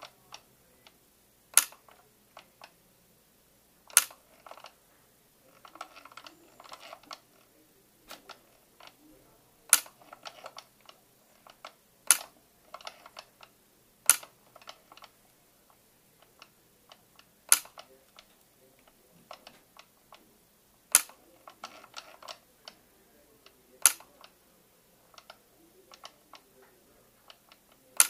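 Ophthalmic YAG laser firing during vitreolysis, one sharp snap with each shot, about eight shots a few seconds apart. Quieter clicks and tapping come in between.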